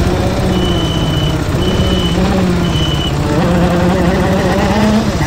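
A CRG KZ shifter kart's 125cc two-stroke engine runs hard, its pitch dipping and rising as the kart slides and accelerates on snow. A high electronic beep sounds three times in the first three seconds.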